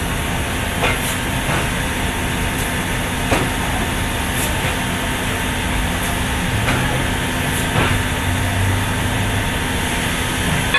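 Steam locomotive standing at rest, a steady hiss of leaking steam over a low, even hum, with a few faint, irregular ticks.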